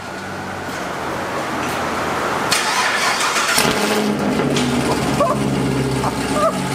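Chevrolet Camaro 1LE engine starting with the muffler cut off, so it exhausts through catless long-tube headers and an X-pipe with no muffler. It builds up over the first few seconds and settles into a loud, open-exhaust idle.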